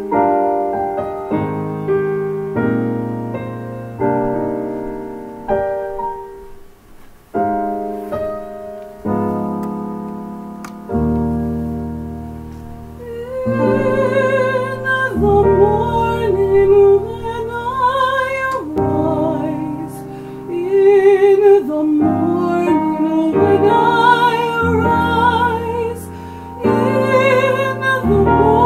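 Piano introduction of held chords, each struck and left to die away. About halfway through, a woman's classically trained voice comes in, singing with vibrato over the piano accompaniment.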